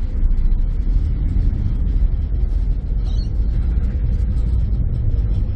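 Harbour ferry under way, a loud, steady low rumble of its engines and passing air on the open deck as it pulls away from the wharf.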